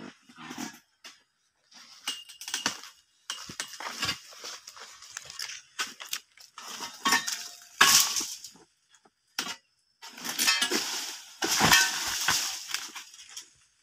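Dry oil palm fronds rustling and crackling in repeated bursts as they are cut from the crown with a long pole sickle and crash down through the leaves, with a few sharp cracks and dull knocks.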